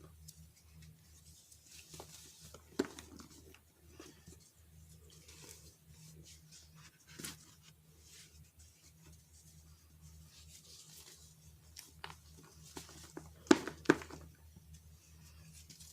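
Pressed baking soda being crushed: soft, sparse crumbling and crackling, with two louder crunches close together near the end. A low steady hum runs underneath.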